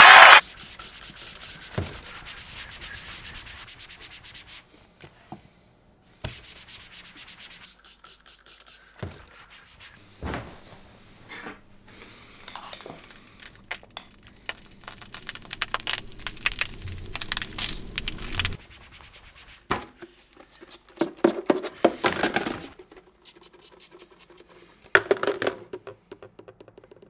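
Spoon scraping and clicking against a bowl while eating, with cloth rustling; a longer stretch of scraping midway and a few louder scrapes near the end.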